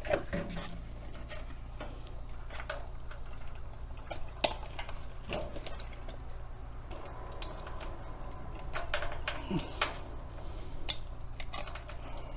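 Scattered small clicks and clatters of the fridge's control circuit board and its plastic housing and connectors being handled and taken off, with one sharp click about four and a half seconds in, over a steady low hum.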